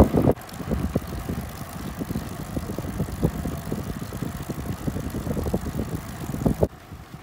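Riding noise of a loaded bicycle rolling along a rough lane: a steady low rumble with many small crackles from the tyres on the grit. It drops quieter near the end.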